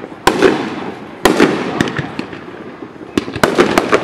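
Aerial fireworks shells bursting in the sky. There is a sharp bang about a quarter second in and another just after a second, each followed by a rumble that dies away, then a quick run of crackling pops near the end.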